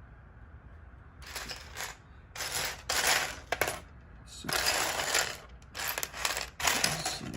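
Loose plastic LEGO pieces rattling and clattering as they are handled, in several short bursts starting about a second in.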